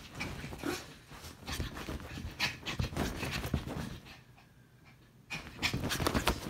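Small dog panting hard and scrabbling about on a quilted bedspread in a burst of hyperactive play, rustling the bedding. The panting drops away for about a second a little past halfway, then starts again.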